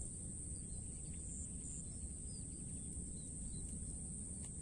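Rural outdoor ambience: a steady high-pitched insect drone over a low wind rumble, with a few faint bird chirps.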